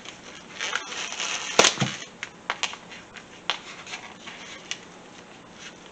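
Crinkling and crackling of plastic packaging as the raw ground pork is unwrapped by hand, with one sharp crack about a second and a half in, then scattered light clicks and taps.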